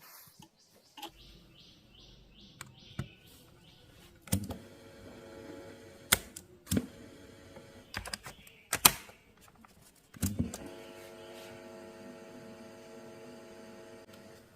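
A run of sharp mechanical clicks and clunks, six of them loud. After the last one, about ten seconds in, a steady hum sets in and runs on.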